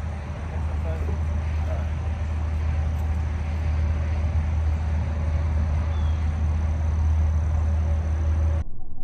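Steady rumble and hiss of traffic from a nearby highway. It cuts off abruptly near the end and gives way to a duller, muffled sound.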